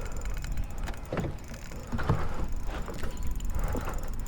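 Fishing reel and rod worked during a fight with a large fish: a handful of short, uneven mechanical strokes over a steady low rumble.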